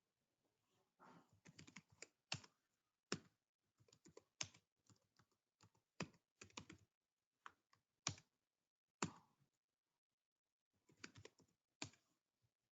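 Faint computer keyboard typing: irregular keystrokes in short quick runs, with several louder single key presses in between.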